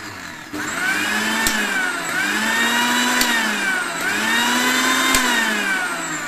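Panasonic MX-AC300 mixer grinder's 550-watt motor running at high speed, a loud whine. It gets louder about half a second in, then its pitch swells and sags three times, with a sharp click near each peak.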